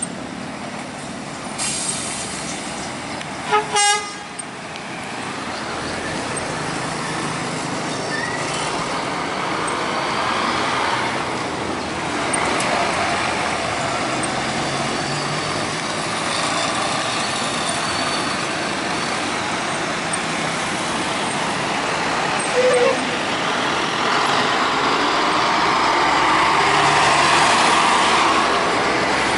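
Scania K440 coach's six-cylinder diesel running as it drives past, with two short horn toots about four seconds in. A single brief horn toot comes later, and the traffic noise swells near the end as a truck passes close by.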